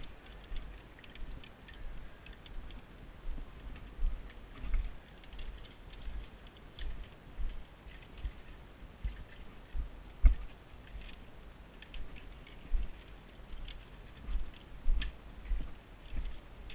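Footsteps on a dirt trail in a steady walking rhythm, with the light metal clinking and jangling of zipline harness carabiners and gear. One louder knock comes about ten seconds in.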